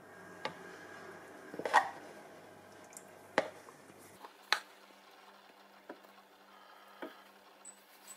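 Evaporated milk poured from a plastic jug into a stainless steel pan, with a series of sharp knocks and taps against the metal pan, the loudest a cluster about two seconds in. Near the end a silicone spatula is set into the pan, with lighter taps.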